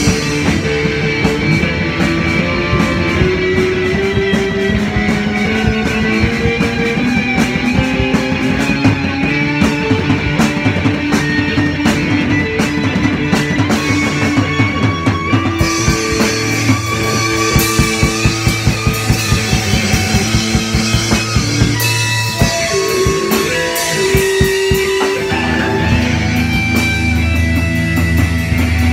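Live rock jam played by a band with electric guitars and a drum kit, with sustained guitar lines over steady, busy drumming. A heavy low note swells in about three seconds before the end.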